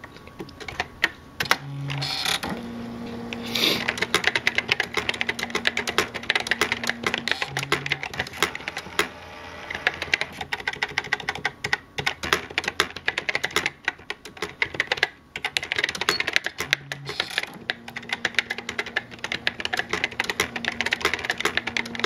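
Brother EP-43 thermal electronic typewriter in use: rapid, uneven key clicks throughout, with a low motor hum that comes and goes for a few seconds at a time and short buzzes now and then.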